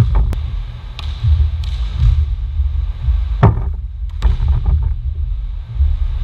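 Volleyball being hit and bouncing on a wooden court in a large hall: several sharp smacks, the loudest about three and a half seconds in, over a steady low rumble.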